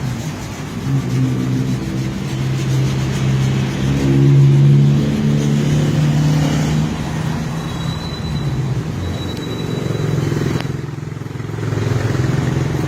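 Motor vehicle engine running close by with a steady hum. It revs up slightly and is loudest about four to five seconds in, then settles, easing off briefly near the end.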